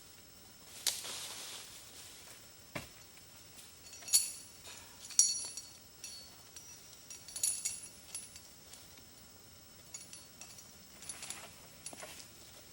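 Light metal gear clinking and jingling, with three sharper ringing clinks about four, five and seven and a half seconds in, between soft brushing and rustling sounds.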